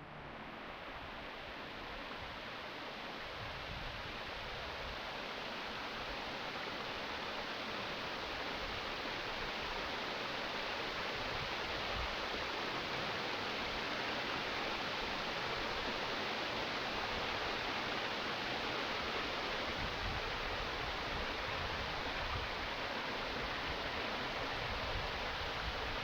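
Waterfall rushing steadily, a constant splashing hiss of falling water that grows louder over the first ten seconds or so and then holds even.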